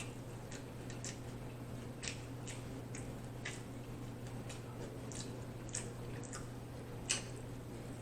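Close-miked chewing of a steak taco: scattered wet mouth clicks and smacks, the loudest about seven seconds in, over a steady low hum.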